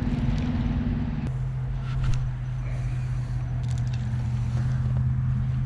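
A steady low motor hum at a fixed pitch that drops lower about a second in, with a few faint clicks over it.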